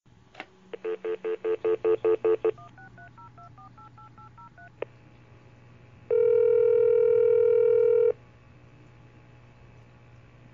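Telephone call being placed: a click, then ten quick touch-tone keypad beeps as a number is dialled, followed by a fainter run of keypad tones. After a second click the line gives one two-second ringback tone, the ringing the caller hears while the other phone rings, then falls quiet over a faint low hum.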